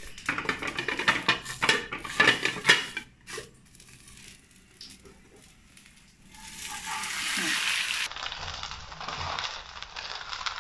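A plate knocking and scraping against a non-stick frying pan as a bread omelette is turned out onto it. About six seconds in, a steady sizzle of hot butter rises as the omelette goes back into the pan, then carries on more quietly.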